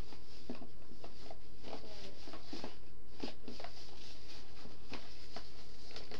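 Small plastic slime containers being handled and set down: irregular light clicks and taps, several a second, over a faint steady hum.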